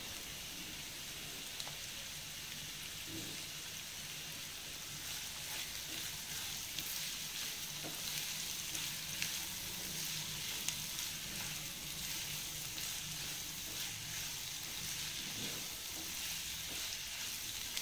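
Sliced onions with curry leaves and green chillies sizzling steadily in coconut oil in a nonstick kadai, sautéing until they soften. A spatula stirs them, adding faint scrapes and ticks over the sizzle.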